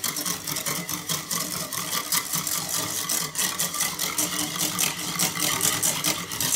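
Wire whisk beating a thin yogurt dressing in a bowl: a rapid, even run of clicking and scraping strokes as the wires strike the sides.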